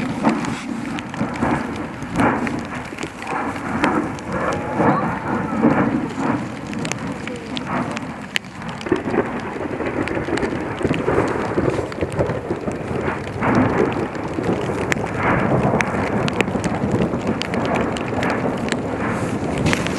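Fuego volcano erupting: a continuous deep rumbling roar that swells and falls, with many short sharp cracks and pops.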